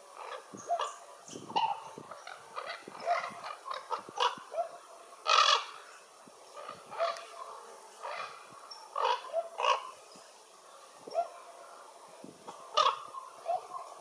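Ravens calling: a run of many short calls at irregular intervals, the loudest about five seconds in and another near the end.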